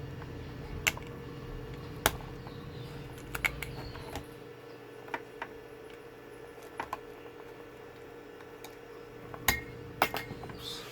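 Scattered light clicks and small metallic clinks of tools and parts being handled on a workbench, sharpest about one and two seconds in and again near the end, over a faint steady hum.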